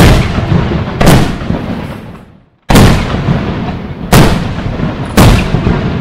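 Aerial firework shells bursting in a fireworks display: five loud booms, at the start, about a second in, near the middle, and twice more toward the end, each trailing off in an echoing rumble.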